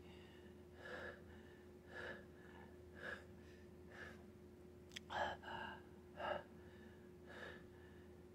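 A man breathing hard in short, quiet gasps, about one a second, over a faint steady hum.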